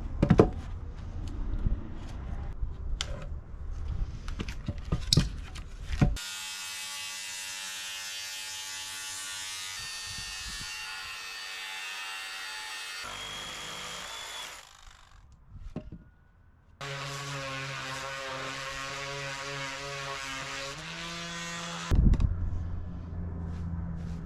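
Power saw cutting a compound miter in a 4x6 timber. First come knocks and clicks as the wood is handled. Then the saw's motor runs steadily through the cut, with a short pause partway, and a thud near the end.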